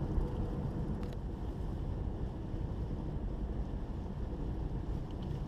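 Steady low rumble of a car in motion: road and engine noise, with a single sharp click about a second in.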